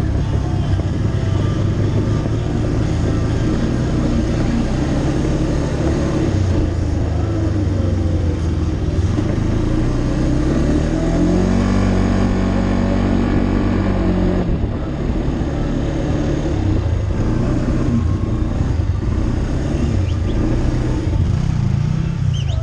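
ATV engine running under way on a dirt trail. Its pitch rises about halfway through as it speeds up, holds, and falls again near the end.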